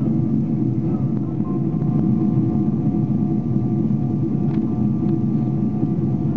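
Boeing 777 airliner in descent, its engines and airflow giving a steady, dense low roar with faint steady whine tones above it. Two faint clicks come about four and five seconds in.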